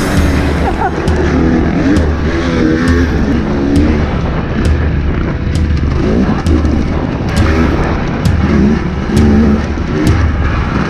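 Husqvarna TX 300's two-stroke dirt bike engine revving up and down under throttle as it is ridden along a dirt trail.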